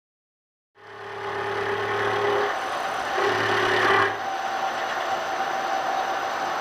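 Milling machine running with an end mill cutting into a metal roller bracket. The sound starts abruptly under a second in as a steady whine, and a lower hum sounds twice, about a second and a half and then about a second long, in the first half.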